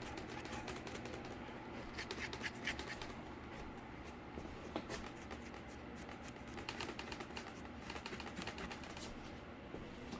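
Paintbrush scratching and dabbing on a cardboard surface during dry brushing, in several short clusters of light scratchy strokes.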